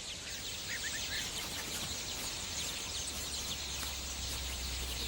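A flock of rosy starlings calling over a steady hiss of background noise, with a few short chirps standing out about a second in. A low steady hum comes in about three seconds in.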